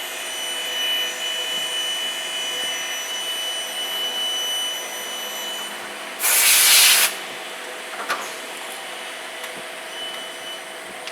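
Metal-machining equipment running with a steady whine and hum. About six seconds in there is a loud hiss lasting under a second.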